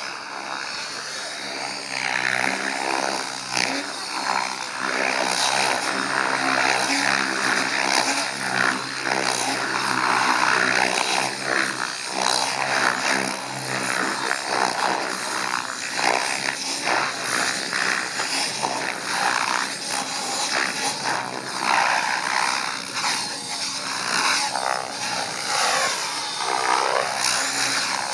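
Thunder Tiger Raptor E700 electric RC helicopter flying 3D aerobatics: the rotor blades' whoosh and the electric motor and gearbox whine, shifting in pitch and swelling and fading in loudness as it manoeuvres.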